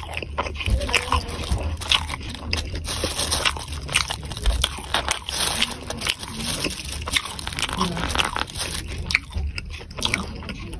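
Close-miked eating of mini meatballs (bakso) in chili oil: chewing and biting with many short wet mouth clicks.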